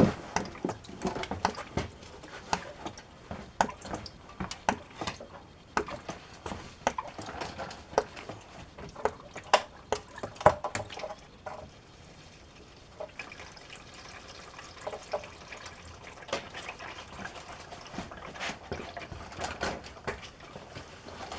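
Engine oil draining from a 2019 Chevy Trax's oil pan into a drain pan, chugging out in irregular glugs and splashes. From about two-thirds in it settles into a smoother, steadier stream, as the opened oil fill cap lets air in and it flows out much easier.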